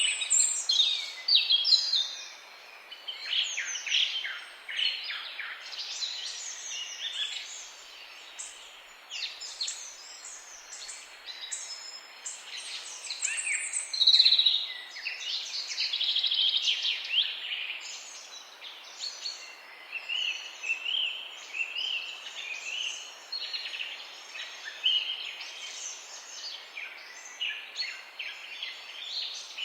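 Several songbirds chirping and singing at once over a steady background hiss, with short sweeping notes thick near the start and a louder, denser stretch of song about halfway through.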